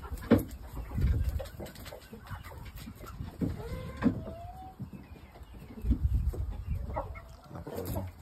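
Shamo chickens giving short clucks and calls, one a rising call about four seconds in.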